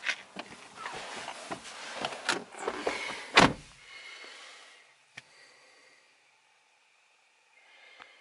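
Rustling and knocks as someone climbs into an Audi A4 Avant, then the driver's door shuts with a heavy thud about three and a half seconds in, and the outside noise drops away. A single click follows about five seconds in.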